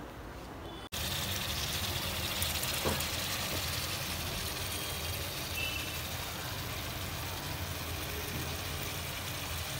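Steady low hum with an even hiss over it, starting abruptly about a second in.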